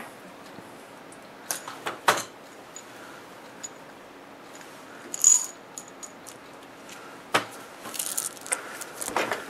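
A cupful of old removed capacitors rattling and clinking in a small clear cup: a few separate clicks, a brighter clatter about five seconds in, and a busier run of rattling near the end.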